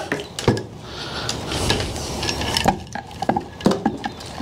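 Knocks and clatter of an old electric trolling motor's shaft and motor housing being handled and laid down on a plywood workbench, with a handful of separate sharp knocks spread through and rustling handling noise between them.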